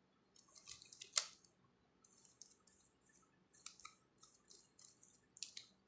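A plastic 3×3 Rubik's cube being turned through a PLL algorithm: short runs of quick, faint clicking and rattling layer turns, with a sharper click about a second in.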